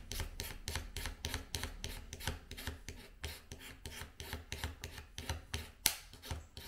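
Hobby knife blade scraping back and forth along small model railroad rail pieces, about four quick strokes a second, with one sharper scrape near the end. The back of the blade, held at an angle, is scraping the weathering off the rail so it will take solder.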